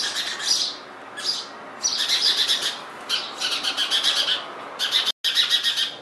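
House sparrows cheeping: rapid, high-pitched calls in repeated bursts, the begging calls of nestlings being fed at the nest. The sound cuts out for an instant near the end.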